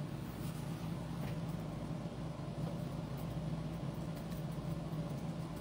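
Steady low hum of room background noise, with a few faint ticks.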